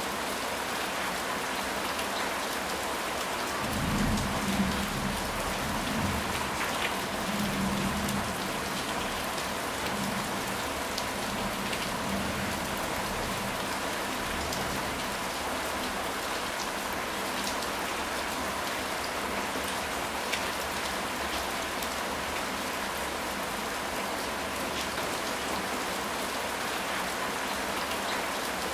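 Steady rain: a dense, even hiss with scattered drop taps. Low rumbles of thunder come in about four seconds in and roll on for several seconds.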